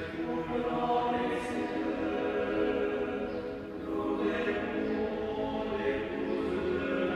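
Choir singing slow, chant-like music in long held notes.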